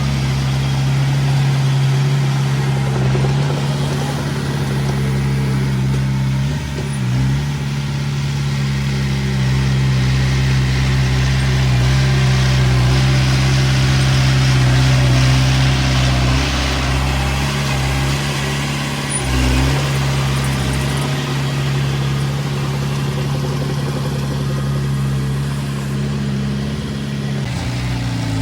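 A small bulldozer's diesel engine running steadily under work, dipping briefly in pitch about seven seconds in and again about nineteen seconds in.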